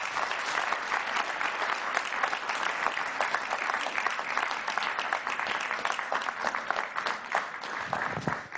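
Audience applauding steadily, a dense patter of many hands clapping that tails off at the very end.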